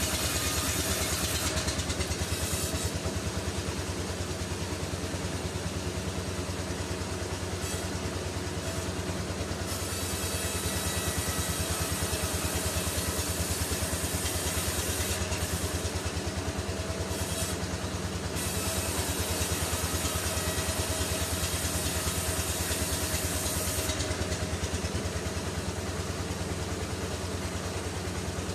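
Sawmill machinery running steadily: an engine-like drone with a rapid low beat and a constant tone. A high hiss over it thins out a few times and returns.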